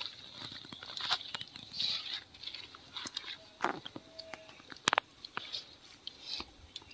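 Hands working wet masala marinade into raw chicken: soft squelching and sticky smacking, with scattered small clicks and one sharper click about five seconds in.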